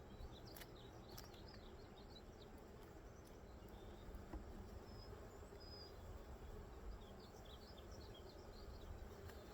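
Faint steady buzzing of a honeybee colony around an opened hive.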